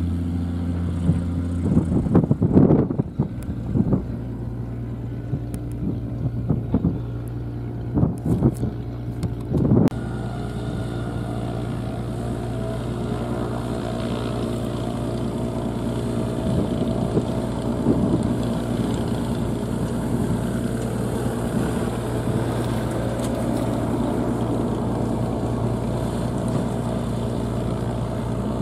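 An FK9 ultralight's propeller engine running steadily at low power as it taxis on the runway. It is preceded by a deeper engine hum at the very start and several seconds of gusty wind on the microphone.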